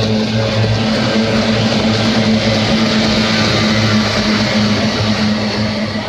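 Pack of kyotei racing boats with two-stroke outboard engines running flat out as they race past through the turn. A steady, loud drone swells around the middle and eases near the end as the boats pull away.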